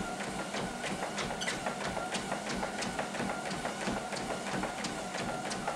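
Treadmill running: a steady motor and belt sound with a faint whine and regular clicks about three times a second.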